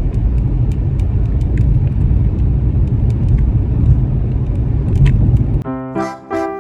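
Car driving: a steady, loud low rumble of road and engine noise with scattered light ticks. It gives way to piano music near the end.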